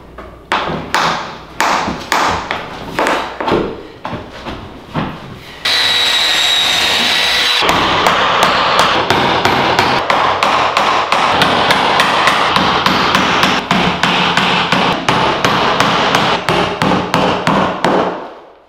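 Claw hammer driving nails into an oak floorboard, with separate strikes about twice a second. About six seconds in, a drill whines for two seconds, pre-drilling a nail hole, then a dense run of rapid hammer blows follows.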